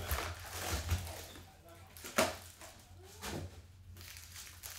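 Plastic shrink-wrap crinkling and tearing as a trading-card box is unwrapped and opened, with a sharp crack about two seconds in and a smaller one a second later. Foil card packs rustle as they are spread out.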